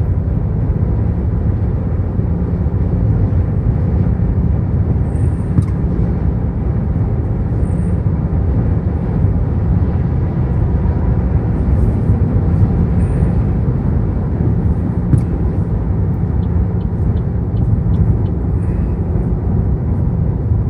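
Steady road and engine rumble of a vehicle driving on a highway, heard from inside the vehicle.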